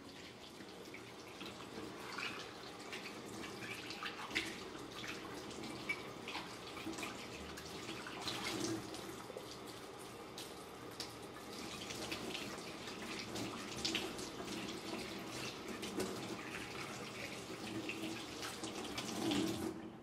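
Kitchen tap water running while ceramic dishes are washed up, with frequent light clinks and knocks of the tableware being handled and set down.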